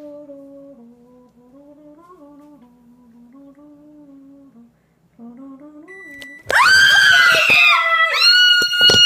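A person humming a slow tune softly, then about six and a half seconds in a very loud, high-pitched scream that rises and is held for about three seconds, with a sharp knock near the end.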